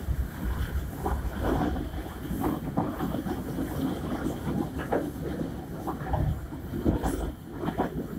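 Passenger train coach running along the track, heard from its rear vestibule: a continuous low rumble of wheels on rail with frequent, irregular clacks and knocks.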